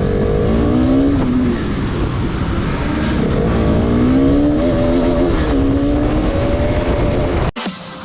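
A vehicle engine running, its pitch rising and falling several times as it is revved, cut off suddenly near the end.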